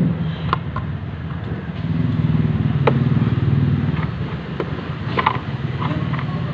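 Sharp plastic clicks and knocks as a scooter's black plastic inner panel and coolant reserve tank cap are handled and fitted back, a few scattered through, several close together about five seconds in. Under them a steady low motor rumble runs.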